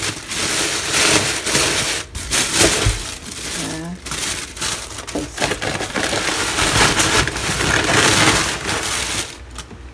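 Thin plastic shopping bags rustling and crinkling as a hand rummages through them, in irregular bursts.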